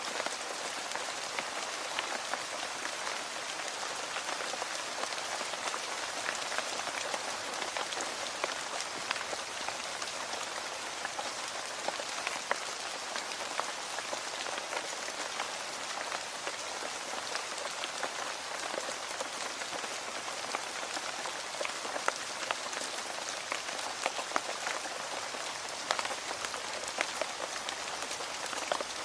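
Steady rain falling, an even hiss with many close individual drops pattering and ticking on a hard surface.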